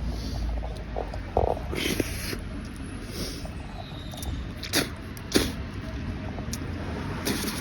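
Close-up wet mouth clicks and smacks from chewing a leaf, scattered irregularly, over a steady low rumble.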